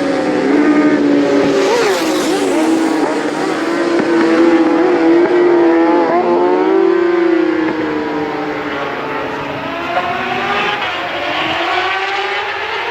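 Racing motorcycle engines running hard on a road circuit, the note dipping sharply around the middle with a gear change, then climbing steadily as the bike accelerates away.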